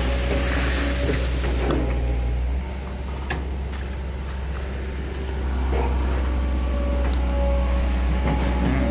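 Diesel engine of a Hitachi EX200 long-arm excavator running with a steady deep hum; it eases off about two and a half seconds in and builds back up about three seconds later.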